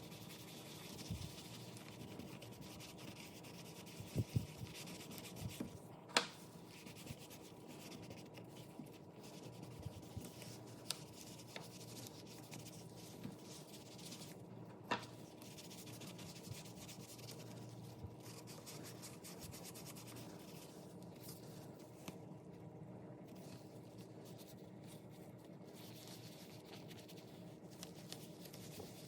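Faint rubbing on leather, likely a leather wallet being worked by hand, with a few light clicks standing out about four, six and fifteen seconds in.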